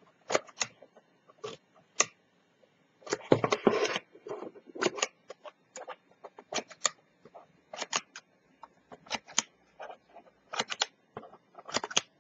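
Small scissors snipping a row of short slits into the edge of a black paper strip, one quick snip after another at an uneven pace. About three seconds in there is a longer rustle of the paper being handled.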